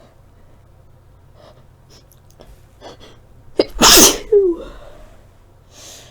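A woman sneezes once, loudly, about three and a half seconds in, after a few soft sniffs and breaths; the sneeze ends in a short falling voiced sound. Near the end there is a soft intake of breath.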